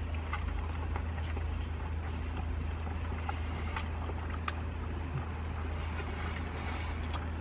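Steady low hum of an idling van engine heard inside the cab, with faint chewing and a couple of soft clicks.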